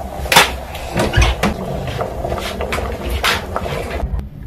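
Kitchen clatter of cookware and utensils: several scattered knocks and clinks, the loudest about half a second in, over a low steady rumble.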